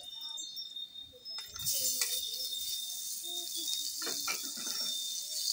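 A metal spatula clinks and scrapes against a wok as garlic fries. About a second and a half in, sliced raw meat goes into the hot wok and a steady sizzle starts.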